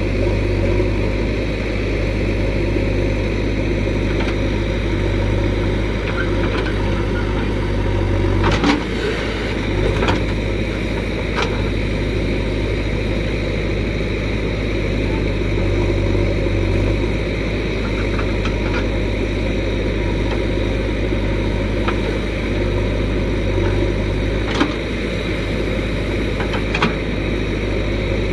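Backhoe loader's diesel engine running steadily, with a few sharp knocks now and then.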